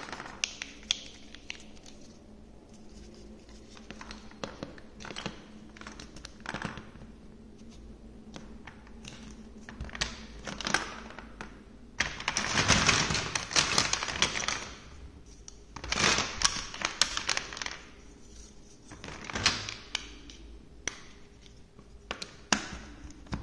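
Large plastic toy building blocks and marble-run pieces being handled: scattered clicks and knocks as pieces are set and pressed onto a studded baseplate, with longer bouts of clattering about halfway through and twice more near the end as hands dig through a pile of blocks.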